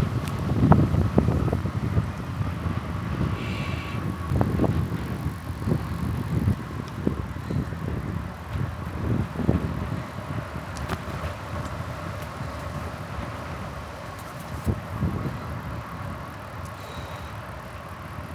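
Riding a bicycle: low wind and road rumble on the microphone with irregular bumps and knocks from the bike over the surface, easing off and getting quieter in the second half.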